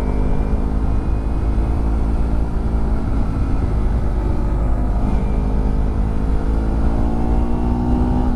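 Kawasaki Ninja motorcycle's carbureted engine running under way, its note climbing slowly as the bike gathers speed, with a brief dip about three seconds in. Heavy wind rushing over the helmet-mounted microphone.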